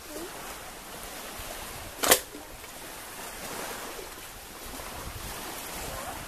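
Steady wash of small surf waves with wind, and a single sharp knock about two seconds in.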